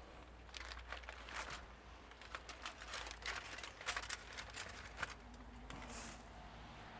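Aluminum foil crinkling in a run of short, faint crackles as foil-wrapped racks of smoked ribs are handled and lifted out of a barrel smoker.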